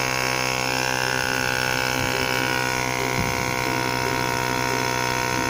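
Portable electric tyre-inflator compressor running steadily with an even hum, pumping air into a car tyre through a hose clipped onto the valve.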